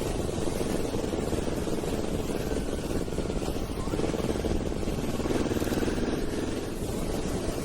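Motorcycle being ridden on the road: a steady engine drone under a dense low rumble of wind and road noise.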